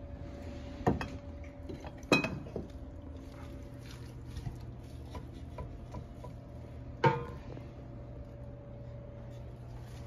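Sharp knocks and clinks, three loud ones about a second in, two seconds in and seven seconds in, with smaller ticks between, over a steady low hum.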